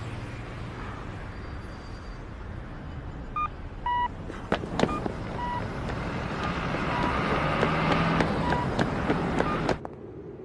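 Traffic-like outdoor noise with several short, high electronic beeps and a few sharp clicks. The noise grows louder, then cuts off abruptly near the end.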